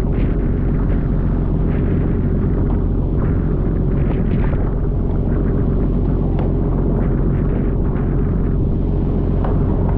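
Fishing boat's engine running steadily, with rushing, splashing water from the spray and the sea along the hull.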